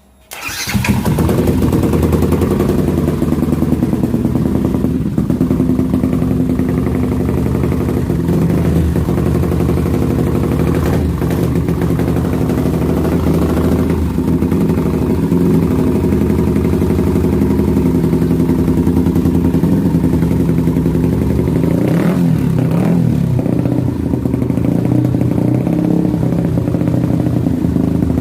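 Yamaha Vixion motorcycle's single-cylinder four-stroke engine, bored out to 360 cc, starting up just after it stops and then running steadily. Its note wobbles briefly about 22 seconds in.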